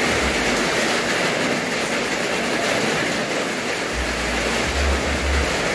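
Heavy rain falling on the roof, a steady, even rush of noise; a low rumble joins in about four seconds in.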